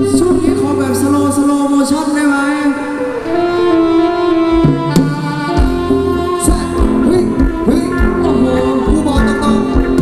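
Thai ramwong dance song played by a live band, with a singer over keyboard-like melody lines. The bass and drums drop out about a second and a half in and come back about halfway through with a steady beat.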